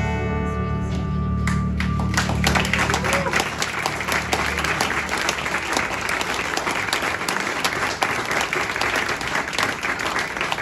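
A live band's closing chord, led by acoustic guitar, rings and fades out over the first few seconds, while audience applause starts about two seconds in, builds, and carries on after the music has stopped.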